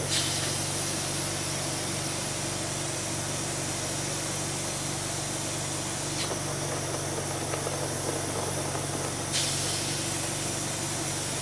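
Steady low machine hum under an even hiss, with a short burst of brighter hiss about nine seconds in.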